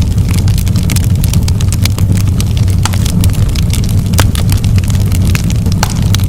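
Fire burning in a fireplace, crackling and popping: many sharp, irregular crackles over a steady low rumble.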